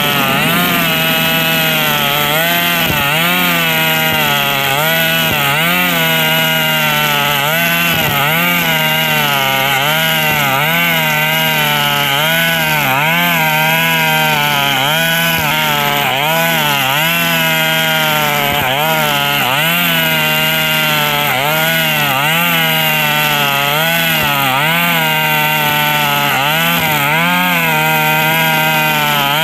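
KNC 4400 brush cutter's engine running loud under load, its pitch sagging and recovering about once a second as the nylon line bites into the grass. The exhaust muffler is rusted through with small holes, which the owner blames for the very loud note.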